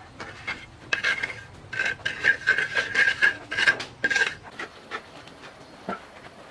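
Metal scraping and clinking in a quick run of strokes for about three seconds, starting about a second in, with a ringing tone under the strokes. A single knock follows near the end.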